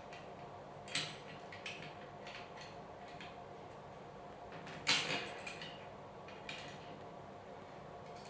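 Scattered clicks and knocks of small metal machine parts being handled and tightened during assembly of a mini metal woodturning lathe. The loudest is a sharp knock about five seconds in.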